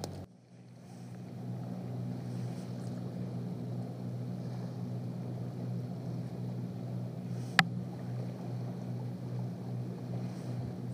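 Low, steady engine drone that swells up over the first second or so and then holds even, with a single sharp click about seven and a half seconds in.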